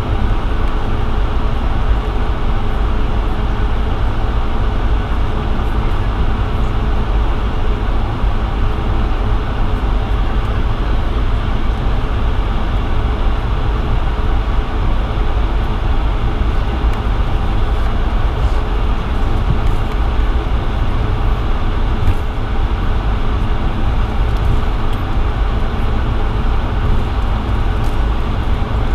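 Steady low rumble inside the cabin of a Bombardier CS100 (Airbus A220-100) jet airliner, from its geared turbofan engines and the airframe, with a faint steady hum above it.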